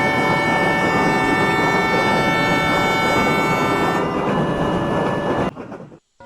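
A train horn sounding a held chord of several notes over loud rumbling train noise. It stops abruptly about five and a half seconds in.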